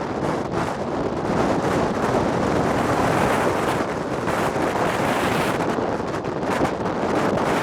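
Strong wind blowing straight onto the microphone: a dense, rushing buffet of wind noise that swells and eases in gusts.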